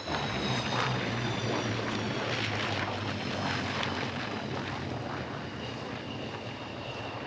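Twin jet engines of a MiG-29 fighter rolling out along the runway after landing: a loud, rushing roar, with a steady high whine coming in about five seconds in.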